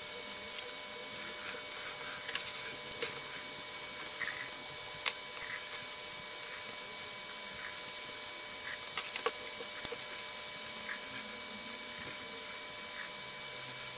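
Faint steady electrical hiss with thin, constant high-pitched whining tones, and scattered small soft clicks.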